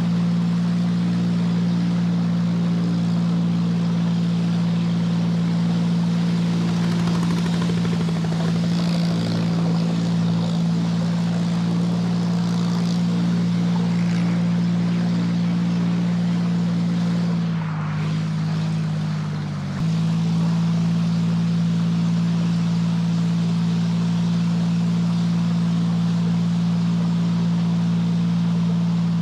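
Small wooden boat's engine running at a steady speed. Its note drops lower for about two seconds a little past halfway, then comes back up abruptly.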